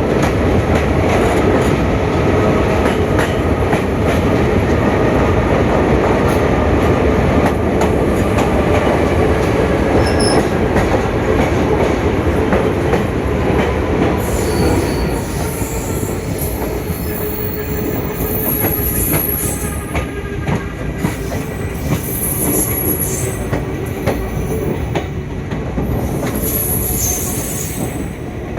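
Passenger train running: a steady rumble of wheels on rail with scattered clicks. From about halfway the rumble eases a little and high-pitched wheel squeal comes and goes in several stretches.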